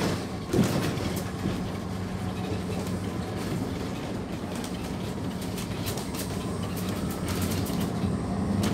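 Van Hool NewA309 bus's MAN D0836 six-cylinder diesel running steadily, heard from inside the cabin, with the body and fittings rattling and knocking irregularly over rough gravel ground; one sharp knock about half a second in is the loudest sound.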